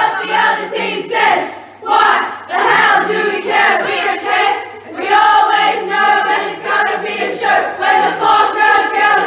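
A group of voices chanting together close by, in loud phrases of a second or two with short breaks between them.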